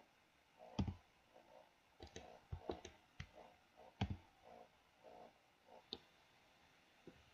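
Computer mouse and keyboard clicks: about ten short, sharp clicks at irregular intervals, several in quick succession two to three seconds in.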